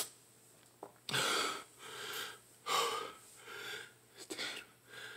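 A man breathing hard through an open mouth in a series of sharp breaths, the loudest about a second in and just under three seconds in: panting against the burn of a Carolina Reaper chip.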